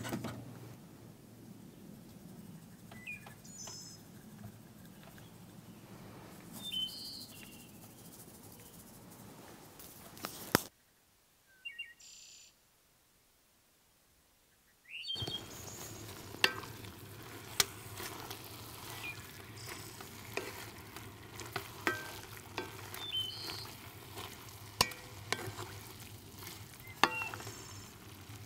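Chopped chuck roast browning in olive oil in a Dutch oven, sizzling steadily as it is stirred, with frequent sharp clicks and scrapes of the utensil against the pot. The sound drops out to complete silence for about four seconds near the middle, then the sizzling resumes.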